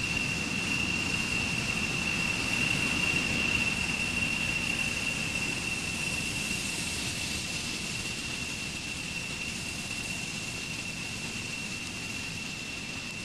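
Steady mechanical running noise with hiss and a constant high whine; it swells a little in the first few seconds and then eases off slowly.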